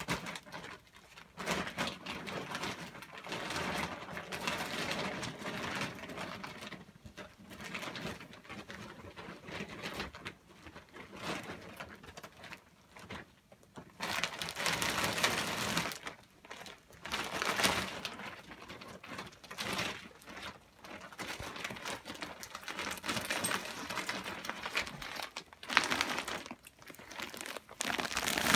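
An IKEA plastic bag crinkling and rustling as dresses on hangers are packed into it, coming and going with short pauses.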